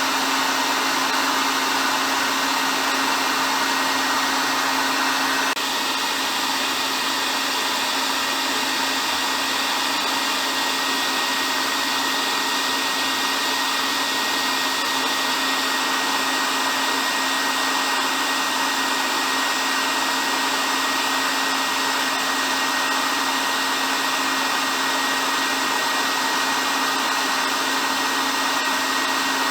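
Hair dryer running steadily: a continuous airy rush over a steady low motor hum and a faint high whine, dipping slightly in level about five seconds in.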